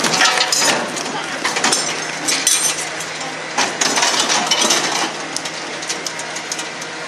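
Metal parts and tools clinking and clanking in quick irregular knocks as a crew works on a Willys jeep, over a background of crowd noise.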